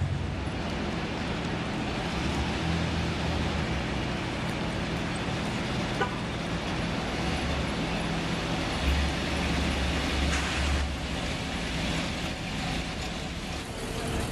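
Car engines running with a low steady rumble amid street noise, swelling louder about nine seconds in and again near eleven seconds.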